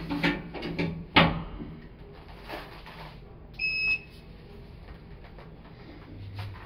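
Elevator hall call button pressed: a short steady electronic beep about halfway through, acknowledging the down call. It comes after a few sharp knocks near the start, and a low steady hum begins near the end.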